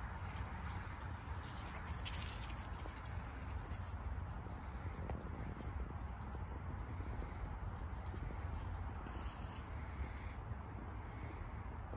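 Outdoor background noise: a steady low rumble and a soft rustling haze, with short high chirps repeating throughout.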